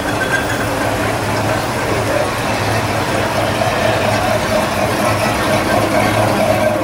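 Classic American V8 cars idling as they roll slowly by at walking pace, a steady engine rumble.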